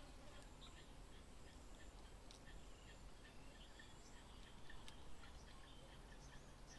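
Faint garden ambience: a steady high-pitched insect whine, with short faint bird chirps repeating two or three times a second from about a third of the way in.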